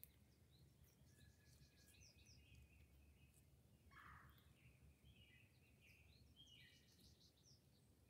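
Faint birdsong: several birds chirping and trilling in short, high notes, with a briefer, rougher call about four seconds in.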